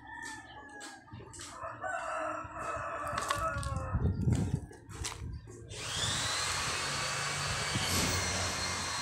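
Drawn-out animal calls, then about six seconds in a machine starts up and runs with a steady high whine and hiss.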